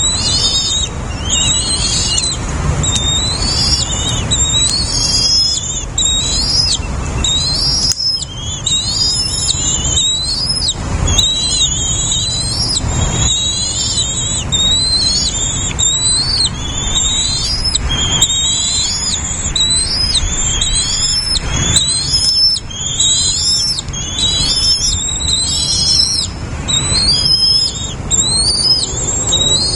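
Small birds chirping: a steady, dense stream of high, quick rising-and-falling calls, over a low rumble.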